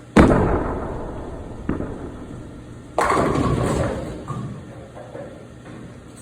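Bowling pins crashing as a ball hits them, the clatter ringing on for a couple of seconds, then a second loud crash of pins about three seconds in.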